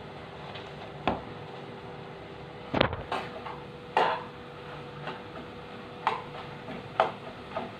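Kitchen utensils and dishes being handled, giving scattered knocks and clacks, the loudest about three and four seconds in, over a steady low hum.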